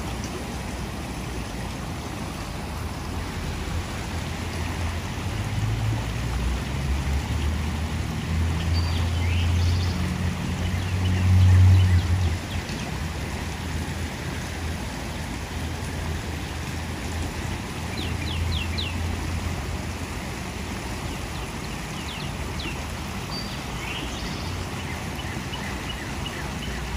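Heavy rain pouring down steadily. A low rumble swells and is loudest about eleven seconds in, and a few short high chirps come through over the rain.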